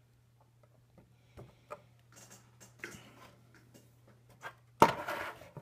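Light scattered clicks and ticks of a circuit board and small tools being handled, then a louder clatter about five seconds in.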